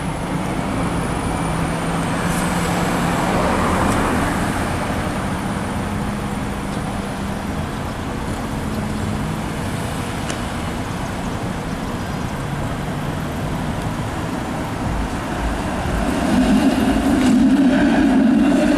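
Street traffic with cars and a TTC Flexity Outlook streetcar running by, getting louder near the end as vehicles pass close.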